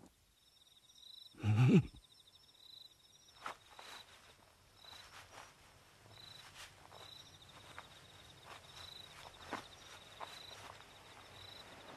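Night-time insect chirping: a steady high trill with louder pulses about once a second. About a second and a half in comes a single loud, short cry that falls sharply in pitch, and a few soft knocks are scattered through the rest.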